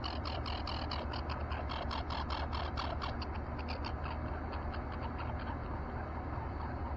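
Steady low outdoor rumble, with a quick series of high chirps, about five or six a second, over the first four seconds.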